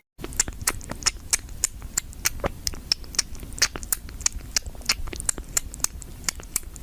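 A cat sucking milk from a feeding bottle's teat: a fast, irregular run of small clicks and smacks, about five or six a second.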